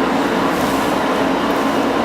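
A steady mechanical drone with a low hum that does not change.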